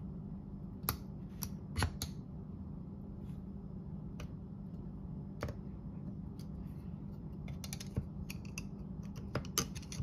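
Small, sharp metal clicks and taps, irregularly spaced, from a thin pick or screwdriver working the parts inside a brass mortise lock case, over a steady low hum.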